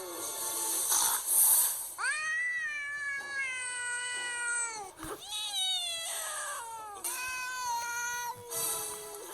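Domestic cat meowing in three long, drawn-out yowls. Each rises at the start and then slides slowly down in pitch.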